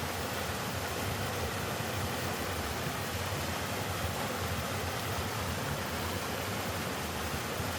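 Mountain-stream waterfall rushing steadily: a low, sloping waterfall with water sliding over rock.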